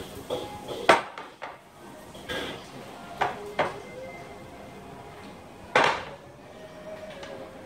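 A handful of sharp knocks and clinks, about five spread out, the loudest about a second in and near six seconds in, over a faint wavering tone.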